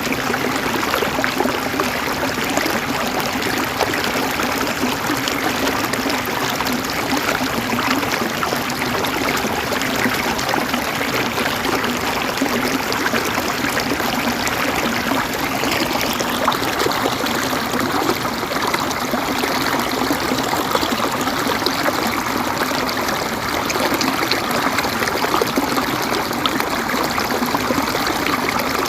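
River water flowing and trickling in a steady, even rush.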